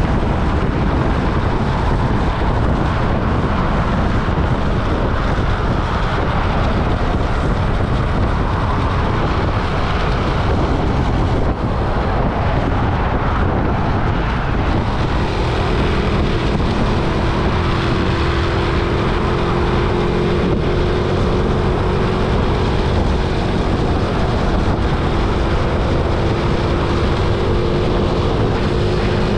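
Riding a Honda Innova 125 motorbike on the road: steady wind rush and road noise over the engine's running. About halfway in, a steady hum joins and slowly rises in pitch.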